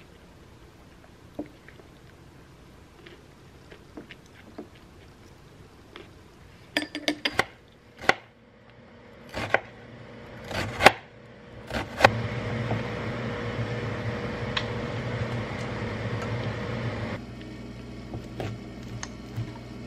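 Kitchen knife cutting an onion and then raw chicken on a wooden cutting board. After a quiet start comes a run of sharp knocks, then several loud single knocks of the blade on the board. A steady hum follows, with light cutting clicks.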